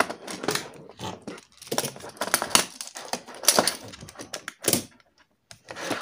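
Plastic magnetic building tiles clacking together as they are lifted off stacks and set down, a run of irregular sharp clicks with a short pause about five seconds in.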